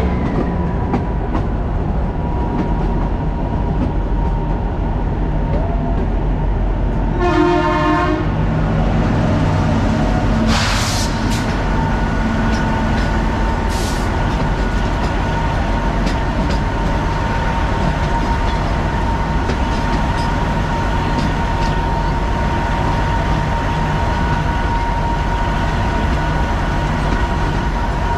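Kalka–Shimla narrow-gauge train running along the track, a steady rumble of wheels and running noise with a thin steady whine over it. The horn sounds once for about a second, roughly a quarter of the way in.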